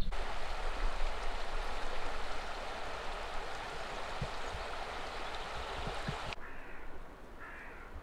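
Rushing water, a steady hiss that begins abruptly and cuts off suddenly about six seconds in.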